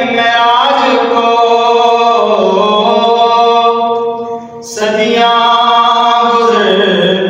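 A solo man's voice reciting a naat unaccompanied, singing long drawn-out notes that slide slowly in pitch, with a short pause for breath about four and a half seconds in.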